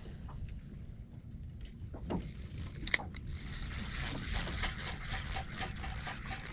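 Wind rumbling on the microphone, then a sharp click about three seconds in and a spinning fishing reel turning, a fast run of small ticks, as line is worked in under load.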